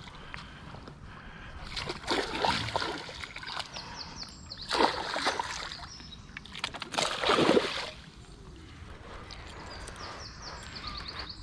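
Water splashing and sloshing as a hooked pike is drawn into a landing net and the net is lifted from the water, in several bursts, the loudest about seven seconds in.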